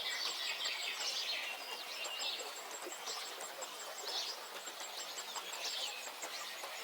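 Songbirds singing in short chirping phrases, over a fast, evenly repeated high ticking and a steady background hiss of open countryside.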